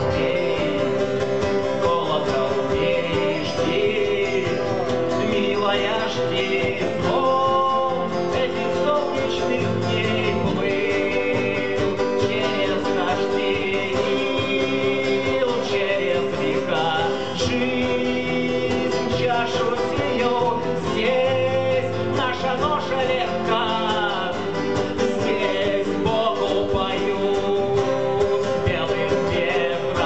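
Live acoustic music: three acoustic guitars strummed and picked together, with a man singing the lead vocal.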